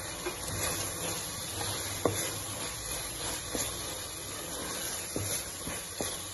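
Masala frying in an aluminium pressure cooker with a steady hissing sizzle, as a wooden spoon stirs in fresh mint and coriander leaves; the spoon knocks lightly against the pot five or six times.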